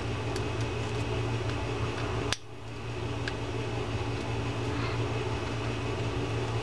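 Steady low mechanical hum in the background, with a few faint light clicks as the metal reel side plate and gear are handled and fitted onto the spool. One sharper click comes a little over two seconds in.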